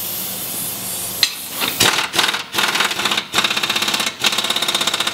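Impact wrench hammering as it runs down the 22 mm lower control arm bolts into the threaded subframe, starting about a second in with several short bursts and then a longer run near the end.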